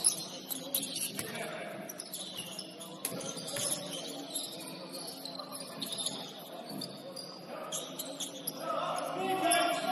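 Basketball game sound in a gym: a ball bouncing on the court amid scattered short knocks and squeaks of play, with indistinct voices in the hall.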